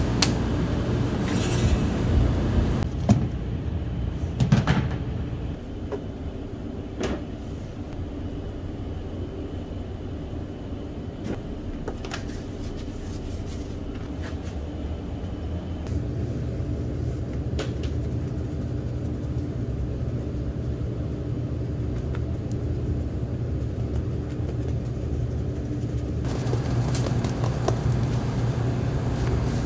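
A steady low machine hum with occasional sharp clicks and knocks, most of them in the first few seconds.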